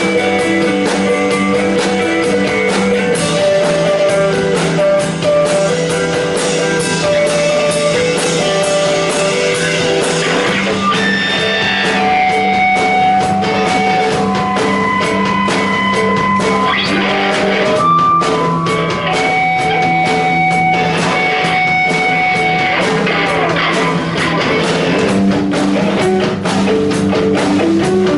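Live rock band playing an instrumental passage: guitars playing a repeating melodic figure over a drum kit, with long held high notes in the middle.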